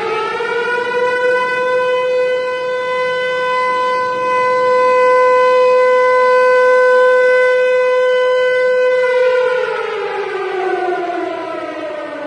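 Civil defense siren, said to be a Harry O. Ricci Siro-Drone, finishing its rise in pitch about a second in and holding one steady, loud wail. About nine seconds in it winds down in a long falling glide.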